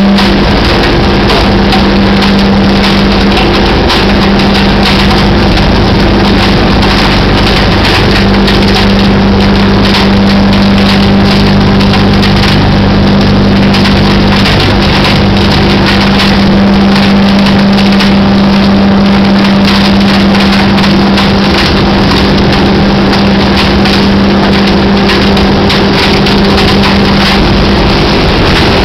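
Tipper truck's engine running steadily with a constant hum while its hydraulic body tips, pouring a load of wine grapes into a hopper in a continuous rush.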